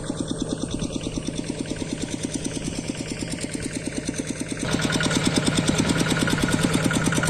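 Small single-cylinder diesel engine of a hand tractor or water pump running with a fast, even beat of firing strokes. About four and a half seconds in, it abruptly gets louder.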